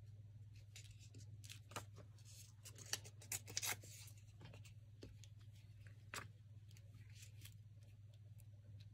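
Faint rustling of paper strips being handled and laid in layers, with a few brief, sharper crinkles around the middle, over a low steady hum.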